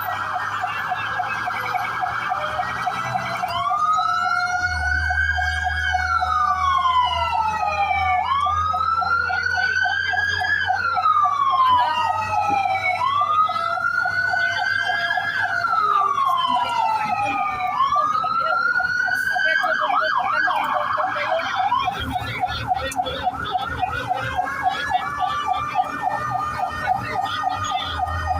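Fire truck sirens. A fast yelping siren runs throughout, and in the middle a second siren wails up and down four times, each rise and fall taking about four seconds.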